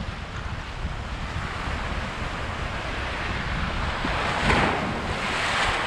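Small waves breaking and washing up the sand, swelling twice near the end, over wind buffeting the microphone.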